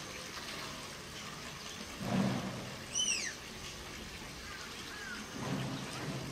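Tapir giving one short, high-pitched squealing whistle that falls in pitch, about three seconds in, over a steady hiss of running water. Two duller low bursts of noise come just before the whistle and near the end.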